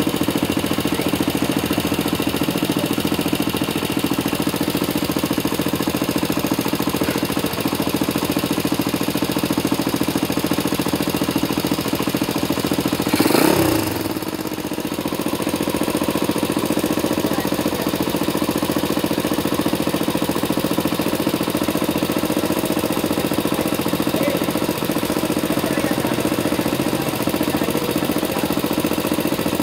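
Air-cooled single-cylinder motorcycle engine idling steadily with a very loud, rough noise, the sign of a mechanical fault. About halfway through it is revved once and the pitch falls back to idle.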